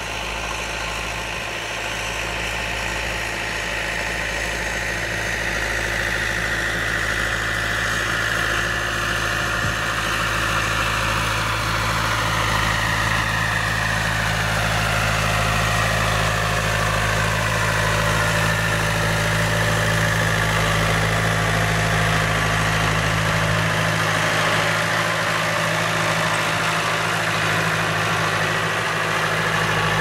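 Massey Ferguson 3075 tractor's turbocharged Perkins diesel engine working steadily under load while pulling a three-furrow plough, growing louder over the first half as it comes near. A higher whine slides down in pitch around the middle.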